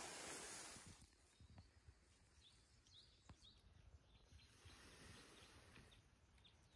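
Near silence: a soft rustle of dry forest litter for about the first second, then a few faint bird chirps.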